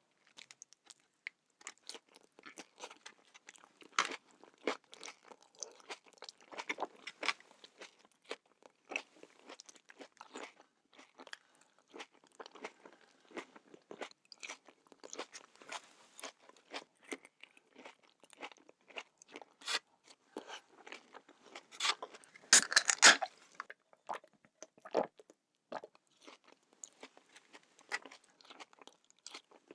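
Close-miked mukbang eating sounds: a person biting and chewing an onion boil, a steady run of short wet clicks and crunches, with a louder cluster of bites about three-quarters of the way through.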